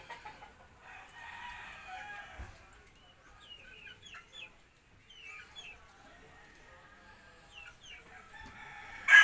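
A rooster crows loudly near the end, after a faint, more distant crow about a second in; a few short small-bird chirps come in between over a low background.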